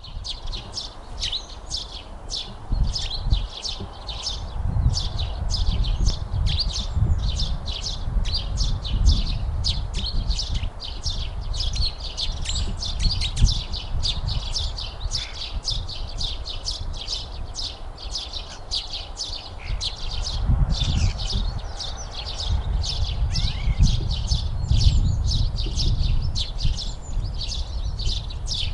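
Small birds chirping continuously, several short high calls a second, over a low rumble that swells and fades.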